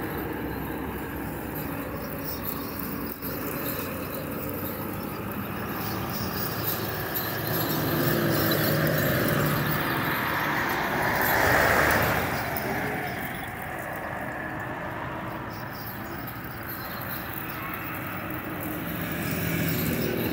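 Mercedes-Benz truck's V8 diesel engine running, with a louder rushing swell about halfway through that fades away again.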